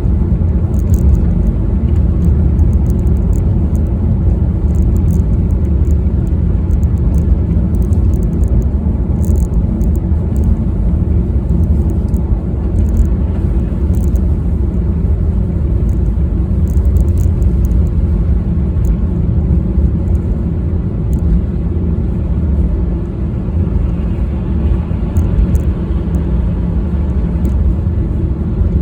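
Car driving: a steady low rumble of engine and road noise, with occasional faint high ticks.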